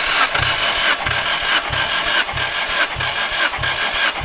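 Nissan S14's SR20 engine being cranked on its starter motor for a compression test: a steady starter whir with an even chuff a little over twice a second as the tested cylinder comes up on compression.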